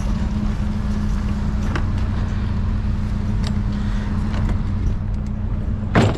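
Truck engine idling steadily, with a few faint ticks and a sharp knock right at the end.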